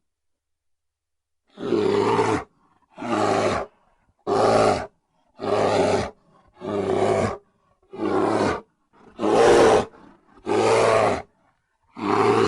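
An angry bear roaring in a series of short roars, about one every second and a quarter, after a silent first second and a half.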